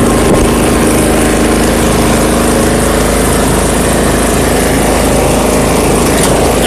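Riding lawn mower's engine running steadily at a constant speed.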